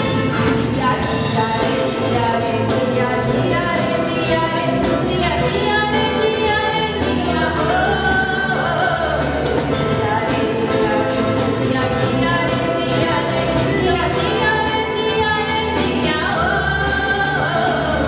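Live band playing with a woman singing lead into a microphone, backed by electric guitar, electric bass, drum kit and keyboard, heard through the stage PA.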